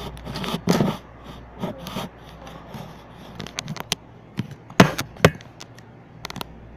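Handling noise: scattered clicks and knocks with some rubbing as hands move the camera and the plastic spinner pieces, two louder knocks about five seconds in.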